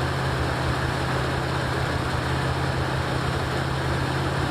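1984 Ford Mustang GT350's Holley-carbureted engine idling steadily on the choke just after a cold start.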